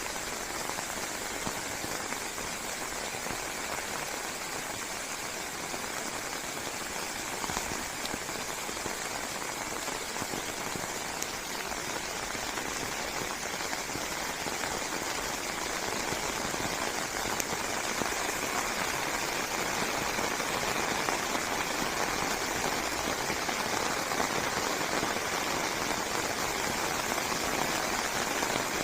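Steady rain falling on forest leaves, a dense even patter that grows a little heavier about halfway through.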